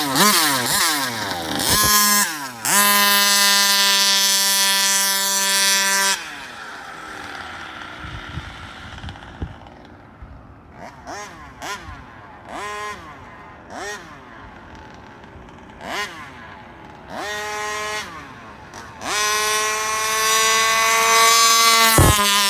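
Rovan 34cc two-stroke engine in a large-scale RC Baja buggy, held at full throttle in long, steady high-pitched pulls. Between the pulls the car is farther off and the engine is quieter, with short throttle blips that rise and fall about once a second.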